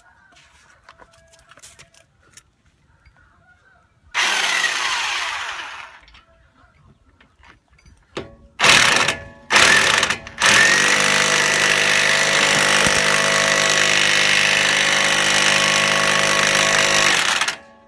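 Corded electric impact wrench running on a nut on a front-hub wheel stud, pulling a replacement stud into the hub. A first burst about four seconds in dies away, then two short bursts and a run of about seven seconds that stops sharply near the end.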